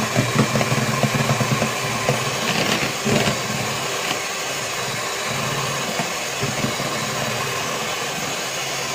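Electric hand mixer running steadily, its twin beaters whipping eggs to a thick white foam in a plastic bowl. A few light knocks in the first three seconds.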